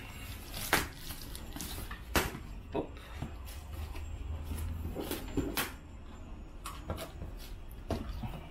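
Scissors cutting into the packing tape and plastic wrap of a cardboard parcel, with the box being handled: a string of irregular sharp snips, crinkles and knocks.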